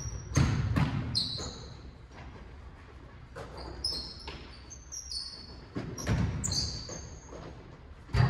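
Basketball bouncing on a hardwood gym floor, with sneakers squeaking in short high chirps, echoing in a large gym. A few bounces come near the start and more come again past the middle.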